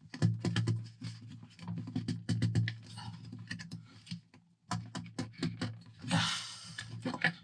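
Irregular plastic clicks and short scrapes as the heater's roof chimney parts are handled and its union nut is screwed down, with a longer rasp about six seconds in. A steady low hum runs underneath.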